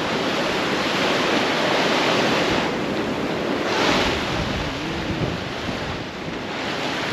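Ocean surf washing in foaming sheets over shallow sand, with wind buffeting the microphone. The wash swells louder briefly about four seconds in.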